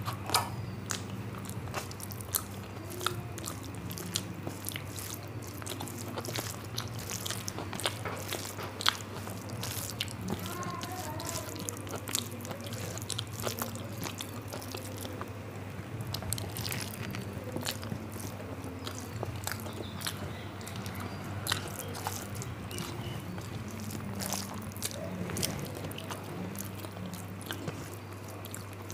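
A person eating rice and curry close to the microphone: wet chewing, lip smacks and mouth clicks come again and again. A steady low hum runs underneath.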